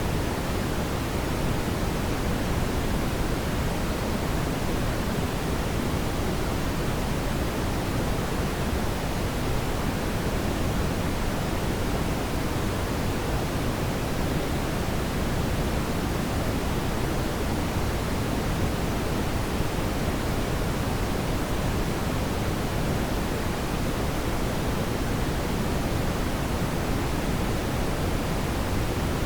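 Steady brown noise: an even, deep hiss weighted toward the low end, unchanging throughout.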